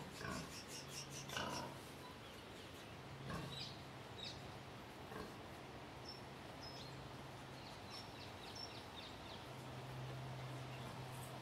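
Quiet field recording of everyday surroundings, played back: a steady low hum with scattered knocks and clicks, and a run of short high chirps from about six to nine seconds in.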